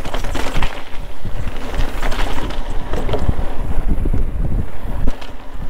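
Mountain bike descending a trail at speed, heard from a GoPro: wind rumbling on the microphone, with tyres rolling over dirt and rock and the bike rattling over bumps. Partway through, the tyres run onto the boards of a wooden bridge.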